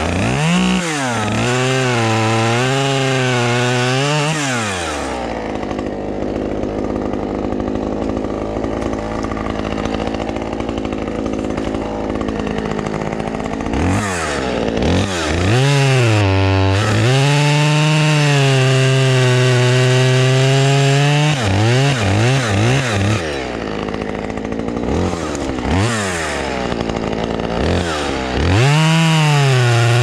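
Husqvarna T345 chainsaw cutting through branches at high revs, its pitch wavering as the chain bogs and frees in the wood. Twice it drops to a steady idle for several seconds between cuts, then is blipped back up with short throttle bursts before bearing into the next cut.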